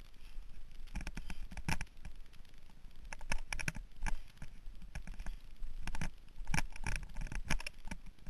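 Mountain bike clattering and rattling over a bumpy dirt singletrack: irregular knocks in quick clusters, over a steady low rumble.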